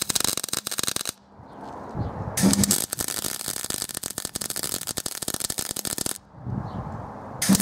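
Wire-feed welder arc crackling as a steel angle-iron bracket foot is welded, in three runs: one ending about a second in, a longer one from about two and a half to six seconds, and another starting near the end.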